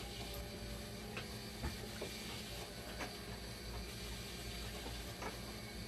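A few light clicks and knocks of a dialysis machine's plastic front screen panel being handled and fitted back into place, the sharpest one a little under two seconds in, over a steady background hum and hiss.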